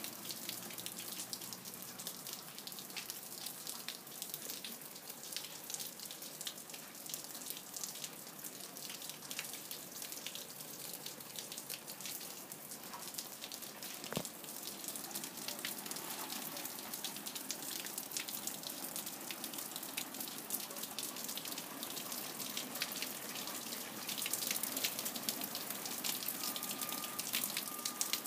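Water dripping from the roof edge onto a wooden balcony and snowy shrubs, a dense patter of drops that grows heavier and louder near the end.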